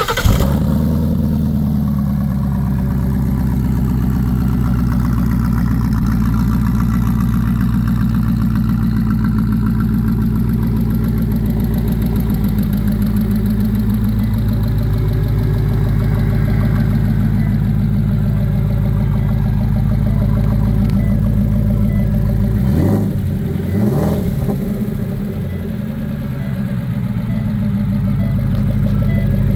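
Ford Shelby GT350's 5.2-litre flat-plane-crank V8 starting on the push button and settling into a steady idle. About 23 seconds in it is revved twice in quick succession, each rise falling back, then it idles again.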